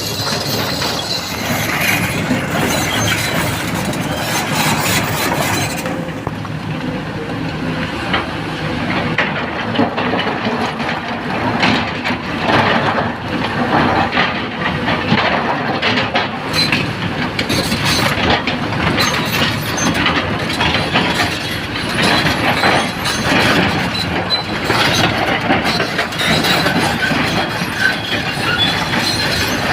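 Large crawler excavator working: engine and machinery running loud with many metal clanks and knocks throughout.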